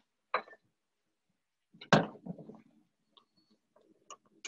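Kitchen handling noises: a knock about a third of a second in and a louder clatter about two seconds in, then faint scattered clicks and taps of a spatula stirring a metal saucepan.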